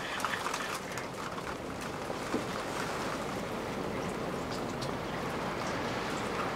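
Heavy rain pouring onto a flooded street: a steady hiss with scattered drops ticking close by.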